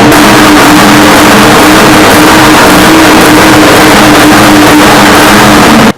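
Lawnmower engine running at full speed, very loud and steady, starting and stopping abruptly.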